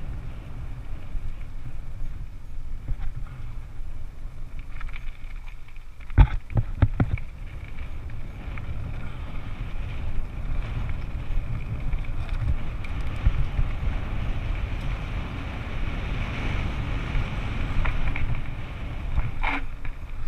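Wind buffeting the microphone over the rumble and rattle of a mountain bike riding a rough downhill trail. A cluster of sharp knocks comes about six seconds in, and another near the end, as the bike hits rough ground.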